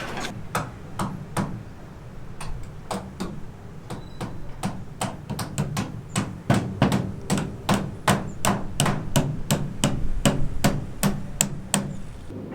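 Hammering: a long, irregular series of sharp blows, coming faster and closer together in the second half.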